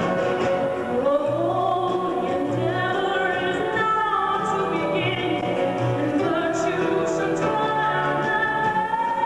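Classical music with sustained operatic singing over an orchestra, held notes gliding and wavering above a bass line that moves in separate notes.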